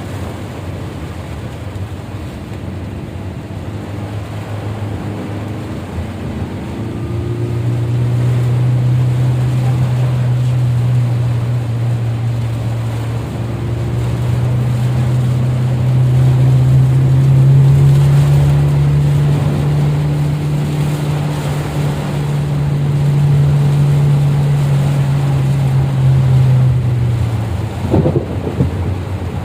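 A vehicle engine running steadily under a constant rush of water and wind noise. Its hum rises slightly in pitch and cuts out near the end, followed by a few sharp knocks.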